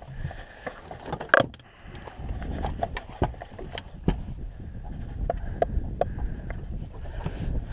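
Scattered knocks and clicks of handling and movement in a small boat while a fish is being played on a spinning reel, with a low wind rumble on the microphone building from about two seconds in.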